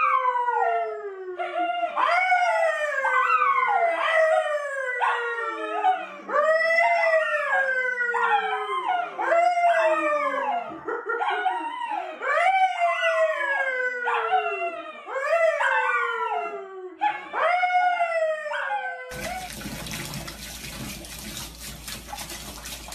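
A man and a brown poodle-type dog howling together: a string of falling howls, about one a second, often two voices overlapping. About nineteen seconds in, this gives way to water running into a bathtub.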